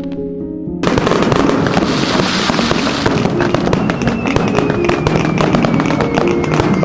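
Fireworks crackling densely, a thick spray of sharp pops that starts suddenly about a second in, with a faint falling whistle in the second half. Background music plays throughout.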